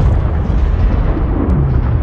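Kong monster sound effect: a heavy booming crash whose dense noise and low rumble slowly die away.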